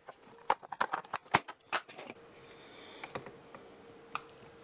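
Handling noise from an opened Bitmain Antminer power supply: a quick run of sharp plastic and metal clicks and taps over the first two seconds, then a few scattered clicks as the fan bracket is lifted out of the case.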